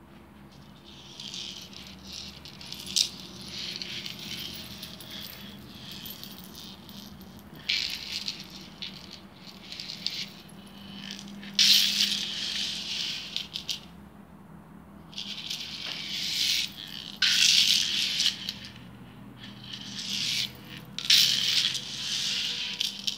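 Silver-toned metal belly belt with rows of dangling teardrop charms jingling and clinking as it is handled. The sound comes in bursts of a second or two, with short pauses between them.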